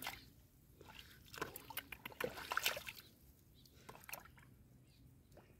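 Hands working through shallow muddy water, giving faint sloshes, drips and small splashes, mostly in a cluster about a second and a half in and once more near the four-second mark.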